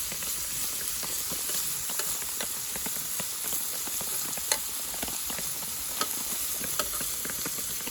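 Food sizzling in a hot pan: a steady frying hiss with scattered sharp crackles and pops.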